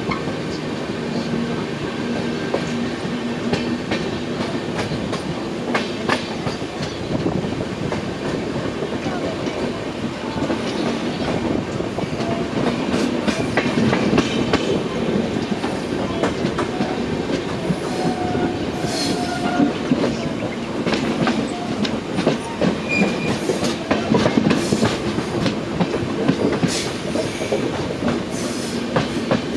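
A train running on the rails: a steady rumble with wheels clicking over rail joints and a few brief wheel squeals.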